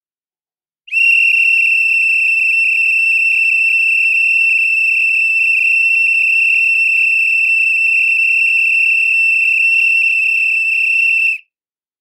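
Pea whistle (referee-style trill whistle) blown in one long, steady, high-pitched blast lasting about ten seconds, starting about a second in and cutting off sharply.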